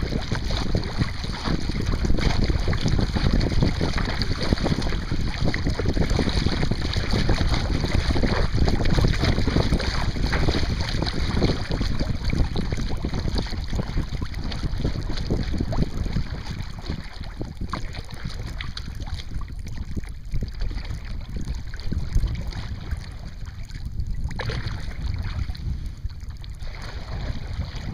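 Wind buffeting the deck-mounted microphone over the splash of wooden Greenland paddle strokes in choppy water beside a sea kayak. The noise eases somewhat about halfway through.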